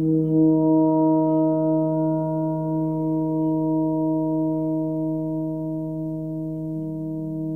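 A large 90 cm hammered Tibetan gong struck softly with a soft-headed mallet about half a second in, then ringing on in a deep sustained hum with several steady overtones, slowly fading.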